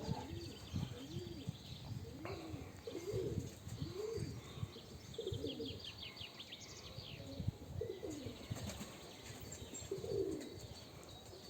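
Domestic pigeons cooing over and over, each coo rising and then falling in pitch, with bursts of high, quick chirping from small birds.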